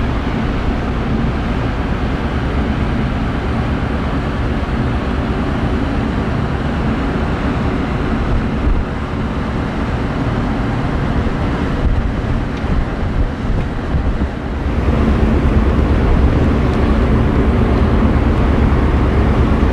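Ferry underway: a steady engine hum with a few low held tones under a rushing noise, growing louder about fifteen seconds in.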